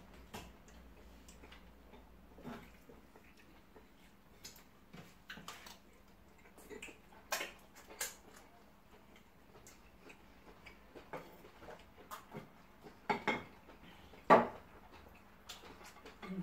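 Close-miked eating sounds from people chewing food eaten by hand: irregular wet mouth clicks and smacks, with a few louder clicks about halfway through and near the end.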